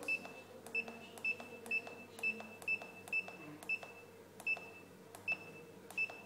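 Spa control panel keypad giving a click and a short high beep with each button press, about eleven presses, roughly two a second at first and slower later, as the clock is stepped forward to set the time.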